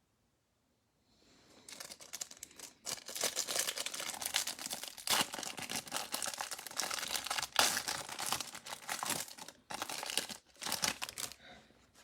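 Plastic wrapping of a Mosaic trading-card hanger box being crinkled and torn open, with dense crackling that starts about a second and a half in and stops shortly before the end.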